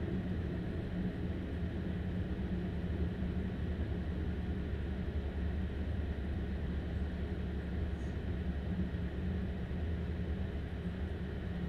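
Steady low rumble of a Stadler Class 755 FLIRT bi-mode train's diesel power-pack engine, heard from inside the carriage next to the engine compartment, with the train's running noise.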